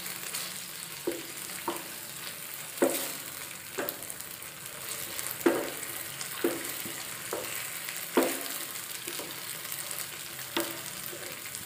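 Sauce sizzling in a non-stick frying pan while a wooden spatula stirs it, knocking and scraping against the pan about once a second. The sauce has cornflour slurry stirred in to thicken it.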